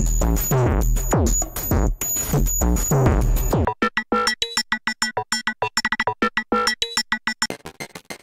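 Electronic music loops from the Steinberg Ambient Lounge sample library, previewed one after another. First comes a dense beat with falling pitch sweeps and a deep low end. It cuts off about four seconds in for a sparse pattern of short, staccato pitched hits. Near the end that gives way to a rapid run of short, clicky hits.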